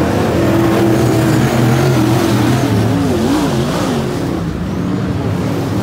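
Several dirt-track race cars' engines running hard as they pass along the fence. The engine note rises and falls several times in quick succession about halfway through as the throttle is lifted and reapplied.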